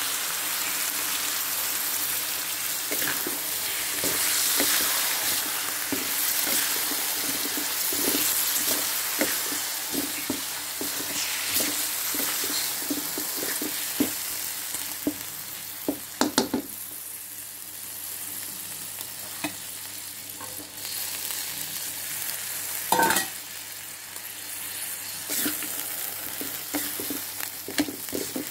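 Chicken pieces in soy and oyster sauce sizzling in hot oil in a wok, stirred with a spatula that scrapes and clicks against the pan. The sizzle is loudest in the first half and eases later, with a few sharper knocks of the spatula on the wok past the middle.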